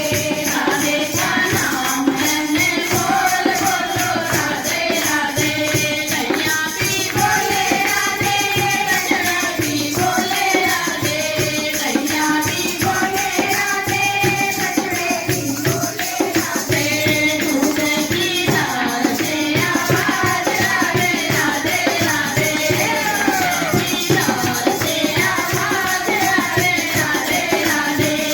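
Hindi devotional bhajan: sung melody over a steady beat of jingling, rattling percussion.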